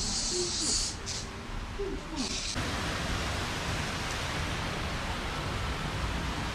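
Steady rushing of water running over rockwork into a garden pond, starting suddenly about two and a half seconds in. Before that comes a high hiss that stops and starts.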